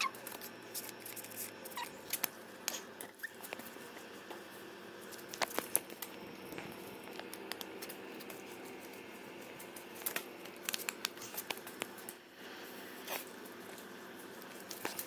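Paper plates burning on a small portable grill, crackling faintly with scattered ticks and pops.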